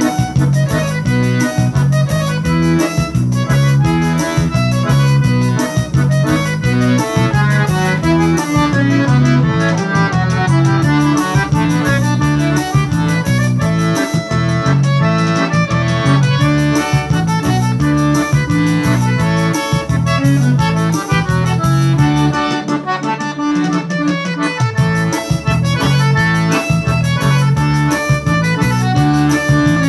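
Piano accordion playing a forró tune, a melody on the right-hand keys over a steady alternating bass. The bass drops out for about two seconds a little past the middle.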